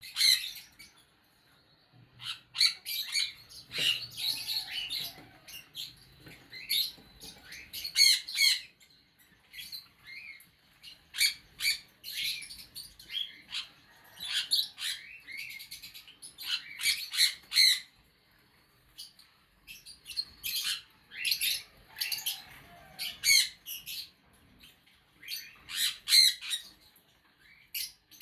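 Pet parrots chirping and squawking in repeated short bursts of quick, high-pitched calls, with brief pauses between the bursts.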